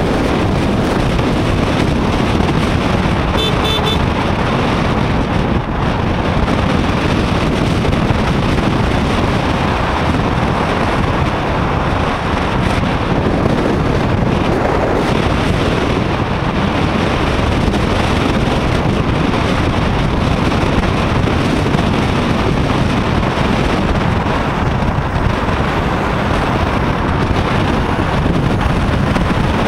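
Steady rush of wind buffeting an action camera's microphone on a moving motorcycle, mixed with road noise, at highway speed.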